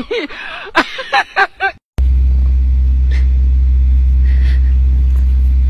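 A loud, steady low hum or rumble that sets in suddenly about two seconds in and holds without change, after a moment of short, rising-and-falling calls or cries.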